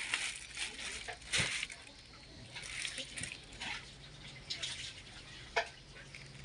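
Wet plastic bag crinkling and rustling in irregular bursts as hands move a wet, iced fish inside it, with one sharp click about five and a half seconds in.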